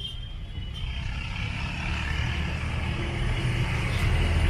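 A motor vehicle's engine running and growing steadily louder as it comes closer.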